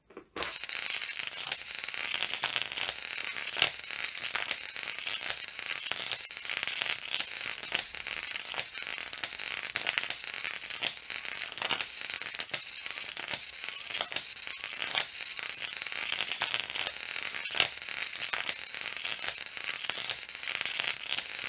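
Jacob's ladder arc crackling continuously: a high-voltage DC arc from a ZVS-driven TV flyback transformer, climbing between two coat-hanger wire electrodes. It starts about half a second in, with a sharper snap roughly every second.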